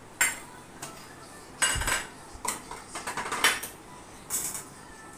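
Metal spoon clinking and scraping against metal bowls in a string of short, separate strokes, the longest and loudest about two seconds in.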